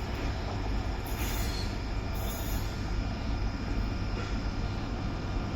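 Telangana Express passenger train running through a station at speed: a steady rumble of wheels on rail as the coaches roll past, with brief high hisses about one and two seconds in.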